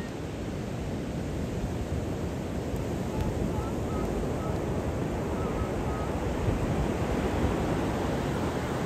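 Ocean surf breaking and washing up on a sandy beach: a steady rush of waves that grows gradually a little louder.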